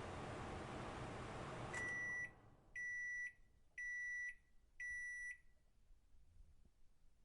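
Microwave oven running with a steady whirring noise that stops just under two seconds in, followed by four high-pitched beeps, each about half a second long and about a second apart: the end-of-cycle signal that the heating is done.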